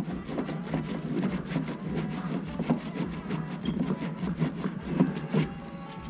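Abrasive sand cloth scrubbed back and forth on a copper water pipe in quick, even strokes, cleaning the pipe end before a repair fitting goes on. The scrubbing stops abruptly about five and a half seconds in.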